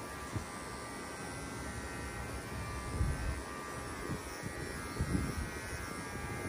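Cordless electric dog clippers with a 9 blade running with a steady buzz as they are drawn against the grain through a beagle's flank coat. A few soft low thumps come in the second half.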